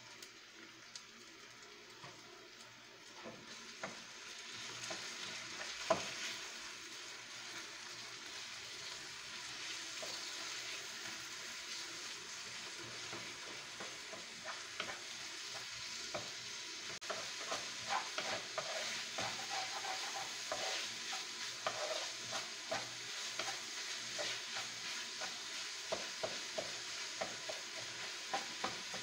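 Ground meat frying with garlic and onion in a non-stick wok, sizzling while a wooden spatula stirs it, with many small scrapes and taps of the spatula on the pan. The sizzle is faint for the first few seconds and grows louder from about four seconds in.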